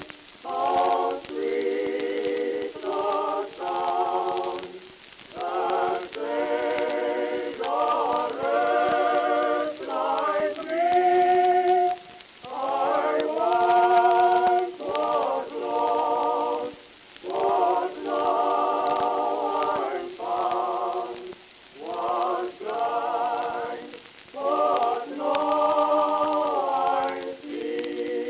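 Background vocal music: several voices singing together in harmony with vibrato, without bass or drums, in short phrases separated by brief pauses.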